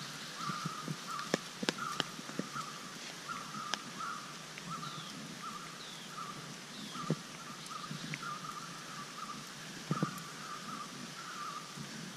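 Outdoor wet-garden ambience: a continuous run of short, rough animal calls repeating over and over, with a few higher falling chirps about halfway through. Scattered sharp taps throughout, and a louder knock near the end.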